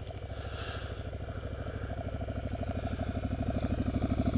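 Cruiser motorcycle engine running at low revs with an even pulsing beat, growing steadily louder as the bike approaches.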